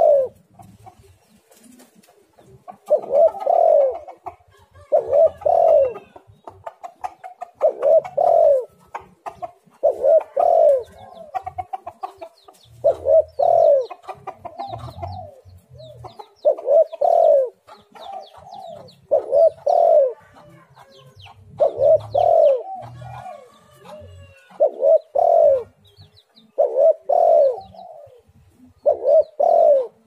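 Spotted dove (tekukur) cooing: a low two-note coo phrase repeated every two to three seconds, about a dozen times.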